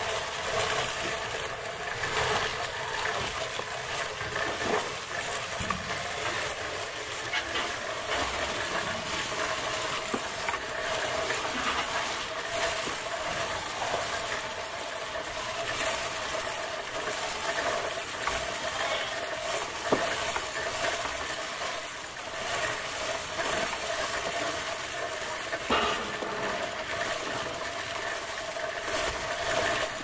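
Electric sheep-shearing handpiece running with a constant hum as it clips through a sheep's fleece.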